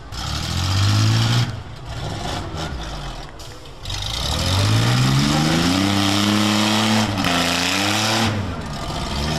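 Demolition-derby minivan engines revving hard: a short rev about a second in, then a long rev that climbs from about four and a half seconds, holds high, and drops off near the end.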